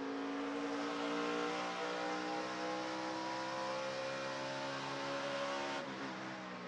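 NASCAR Camping World Truck Series truck's V8 engine at full throttle, heard from the in-cab camera, its note climbing slowly down the straightaway. About six seconds in the note drops off as the driver lifts for the turn.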